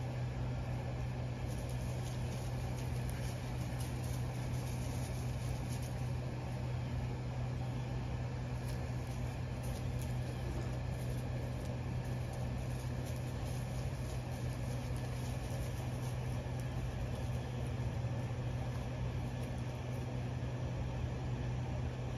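A steady low mechanical hum of a motor or engine running without change.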